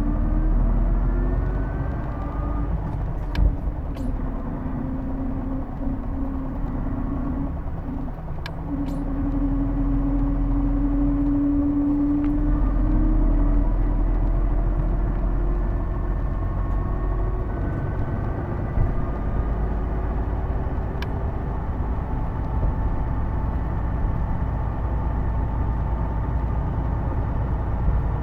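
Hino Blue Ribbon II city bus heard from inside the cabin while under way: a deep engine rumble with several whining tones that slide slowly up and down in pitch as the bus changes speed, and a few sharp clicks. The whine is the unusual transmission noise of this bus, which sounds almost like an automatic gearbox.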